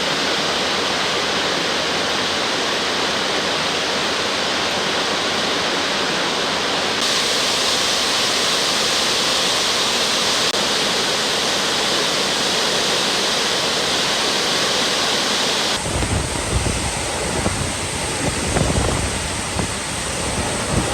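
The Gastein waterfall: a steady rushing roar of falling water, with a cut about seven seconds in that brings more hiss. About sixteen seconds in, gusty low rumbling from wind buffeting the microphone joins the water noise.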